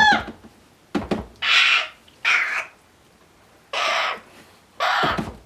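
Barn owl hatchlings begging with harsh, hissing calls: four short bursts of about half a second each, a brief falling call right at the start, and a few sharp clicks about a second in.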